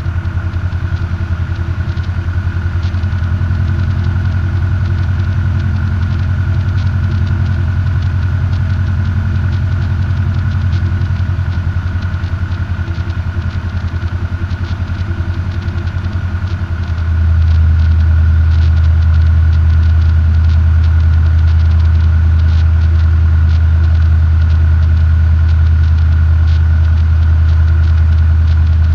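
Robin DR400 light aircraft's piston engine and propeller running at low taxi power, heard from inside the cockpit as a steady low hum with a thin whine above it. About seventeen seconds in the engine note gets louder and smoother.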